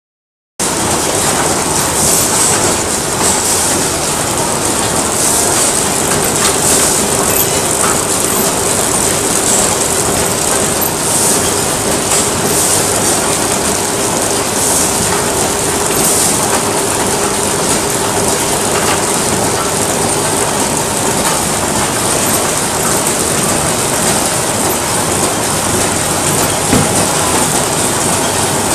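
Pillow-type flow-wrapping packaging machine running steadily: continuous mechanical noise with a faint steady hum.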